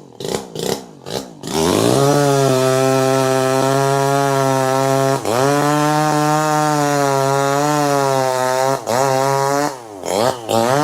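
Two-stroke chainsaw engine blipped in quick short revs, then opened up to a steady high rev about one and a half seconds in. The high rev holds for several seconds with a brief dip about halfway, then breaks back into quick short revs near the end.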